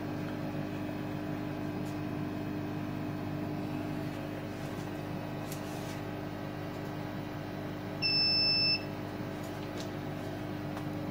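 Small air compressor running with a steady hum, blowing air-assist air through the laser cutter's nozzle, with the fume extractor also running. About eight seconds in comes a single short electronic beep, the loudest sound here.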